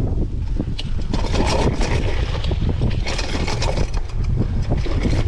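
Mountain bike rattling and clattering over a rough, rocky trail on a steep descent, with many quick knocks, under a heavy rumble of wind on the microphone.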